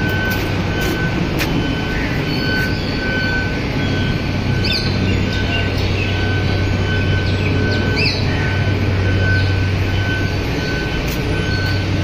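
A few short bird chirps, about five and eight seconds in, over a steady low rumble and a thin, steady high tone.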